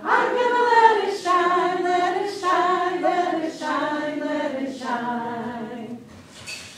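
Three women singing a children's song together, unaccompanied, in held notes; the singing drops away briefly near the end.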